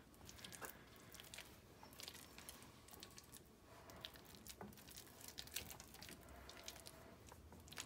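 Faint soft squishing and light scraping of a spatula spreading a thick, creamy shredded-chicken filling in a glass baking dish, with a few small clicks.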